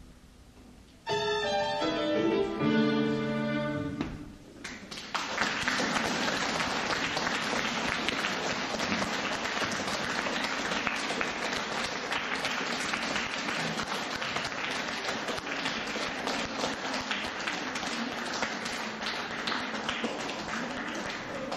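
A short closing phrase of violin and piano ends about four seconds in, and an audience then breaks into steady applause that carries on to the end.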